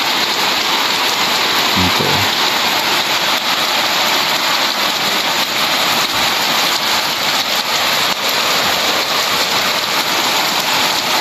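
Heavy rain pouring steadily onto a corrugated metal roof and muddy ground, with water streaming off the roof edge.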